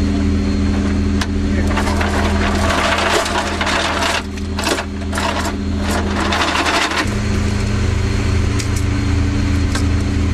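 A linked belt of dummy 25 mm cannon rounds clinking and rattling as it is handled, over a steady engine drone. The clatter is busiest from about two seconds in and stops about seven seconds in.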